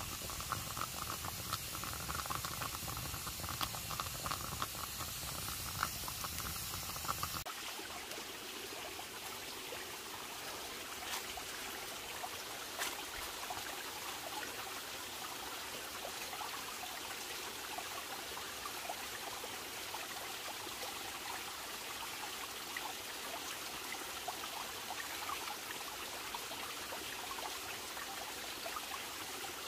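Wood campfire crackling under a green bamboo tube steaming from its end, with liquid boiling inside. About seven seconds in the sound changes abruptly to a steady rush of stream water, with occasional faint pops from the fire.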